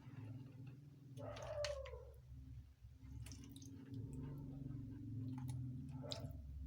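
Quiet eating sounds of water rice (pakhala): soft wet clicks and squelches over a steady low hum. A short, falling pitched call is heard about a second in and again near the end.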